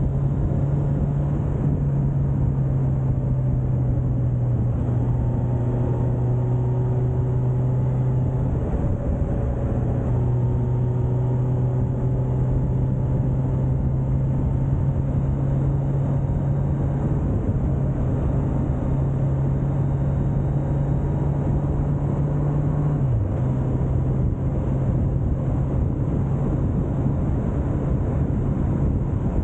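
Motorcycle engine running at a steady, even pitch while riding, over a constant rushing noise; about three quarters of the way through the pitch dips briefly and then settles back.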